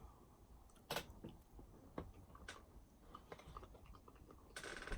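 Faint close-up chewing of a spicy tuna avocado sushi roll: soft, scattered mouth clicks, then a short hiss near the end.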